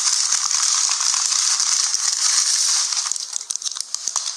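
A loud burst of crackling hiss that starts abruptly and thins out into scattered crackles in the last second.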